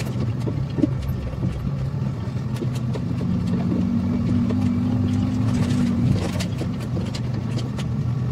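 Truck engine pulling up a rutted dirt track, heard from inside the cab, louder for a couple of seconds midway. Scattered knocks and rattles come as the truck jolts over the ruts.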